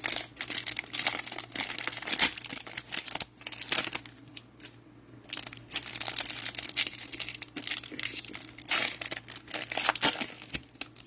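Cellophane wrappers of trading card cello packs crinkling and tearing as packs are opened by hand, in irregular crackling bursts with a short lull about four to five seconds in.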